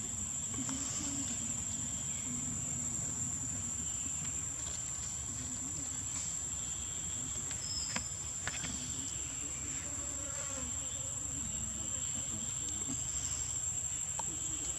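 Insects in the forest keeping up a steady, unbroken high-pitched drone, with a couple of faint clicks about halfway through.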